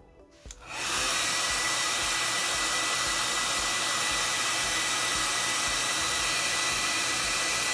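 Hair dryer switched on about a second in, then blowing steadily with a faint high whine, heating a tablet's glass screen to soften the adhesive before the screen is pried off.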